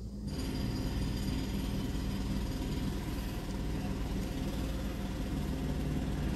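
Seasoned chicken with tomato, onion and scallion sizzling in hot oil in a pot, the sizzle starting suddenly about a third of a second in as the meat hits the oil and then holding steady. A low steady hum runs underneath.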